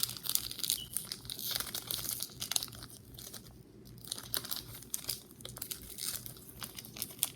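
Plastic wrapping on a speed cube being picked at and torn open by hand: irregular crinkling and crackling with small tearing sounds.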